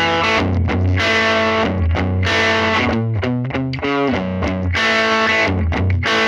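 Rock music led by a distorted electric guitar playing a rhythmic riff with heavy low notes.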